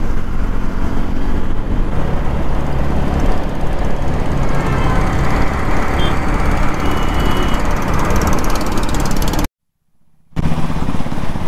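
KTM 390 motorcycle's single-cylinder engine running at road speed, heard from the rider's helmet with wind rush over it. The sound cuts out completely for under a second near the end, then picks up again.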